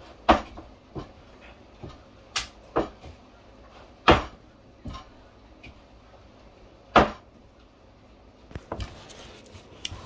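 Irregular sharp knocks and clacks of things being handled in a kitchen, three of them louder than the rest, with a quick flurry of small clicks near the end.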